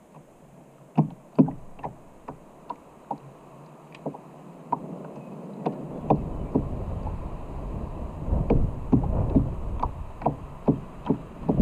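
Small waves slapping and knocking against a kayak hull in short, irregular knocks, about one or two a second. Wind buffeting the microphone sets in about halfway and grows louder toward the end.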